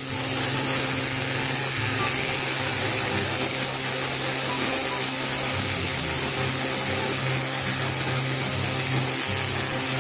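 A power tool running steadily, with background music underneath.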